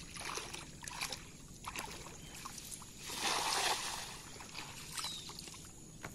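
Cast net landing on river water with a wide, spreading splash about three seconds in, the loudest moment, amid small splashes and sloshing of someone wading in shallow water.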